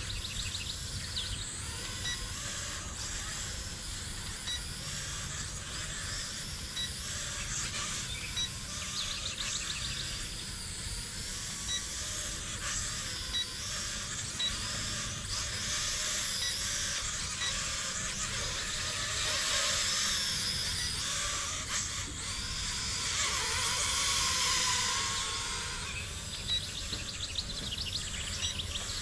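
Outdoor ambience: birds chirping now and then over a steady insect-like hiss, with low wind rumble on the microphone. The hiss grows louder for a few seconds about two-thirds of the way through.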